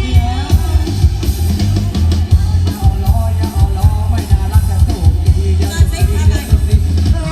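Loud music: a singer over a drum kit and a heavy, steady bass beat.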